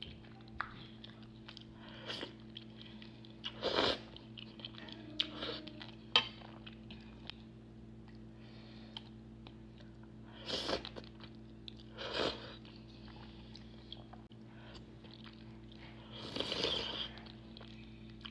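Close-miked eating of spicy ramen: wet chewing and small mouth clicks, with four louder noisy bursts of biting or slurping spread through. A steady low electrical hum runs underneath.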